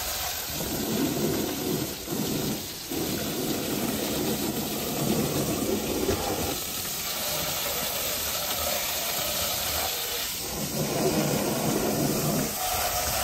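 A garden hose sprays a jet of water onto a muddy car tyre and wheel arch with a steady hiss. Heavier splashing comes and goes: from about half a second in to about six and a half seconds, and again from about ten and a half seconds until just before the end.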